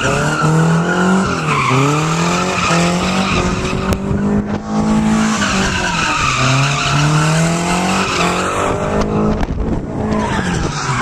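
A drift car's engine held at high revs, dropping briefly and climbing again about three times, while its tyres squeal as it slides.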